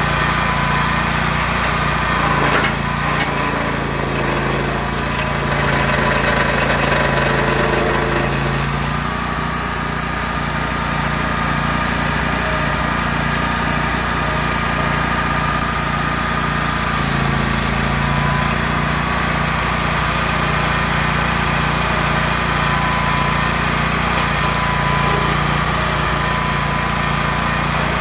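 Engine of a Rayco RG 1625 stump grinder running steadily, its note shifting a few times as the cutter wheel takes changing load at the stump. There are a few sharp ticks about three seconds in.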